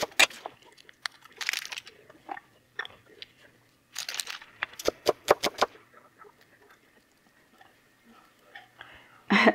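A cleaver knocking through an onion onto a wooden cutting board at the start, then crisp crunching and snapping as the onion slices are broken apart by hand, in quick clusters about a second and a half in and again around four to five and a half seconds in.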